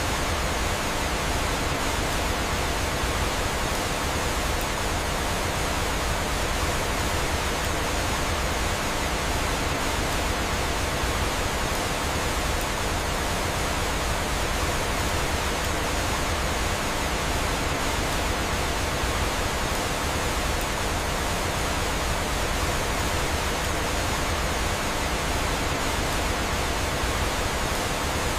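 Steady rushing of flowing water, like a small waterfall, an even hiss with no breaks.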